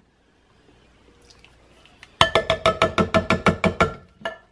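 Upturned tin can of petite diced tomatoes tapped rapidly over a slow-cooker crock to knock the tomatoes out: a quick run of ringing knocks, about eight a second, starting about two seconds in and lasting under two seconds, with one more knock just before the end.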